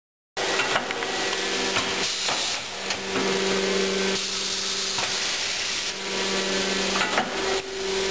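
Marden Edwards stretch banding machine dry cycling, running with no product: a steady hissing mechanical noise with a hum that comes and goes and a few sharp clicks. It starts abruptly about half a second in.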